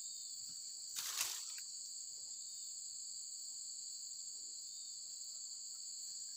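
Steady, high-pitched chorus of crickets or similar insects, with a short burst of rustling noise about a second in.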